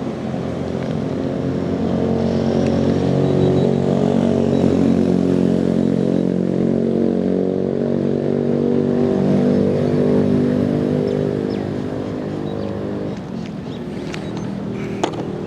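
A motor vehicle's engine running steadily, its level swelling over the first few seconds and easing off after about ten seconds. A sharp click comes near the end.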